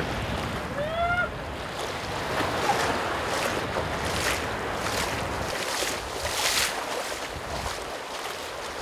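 Broken surf and whitewater rushing around a surfboard, with repeated hissing washes and wind on the microphone. A brief rising squeal from a voice about a second in.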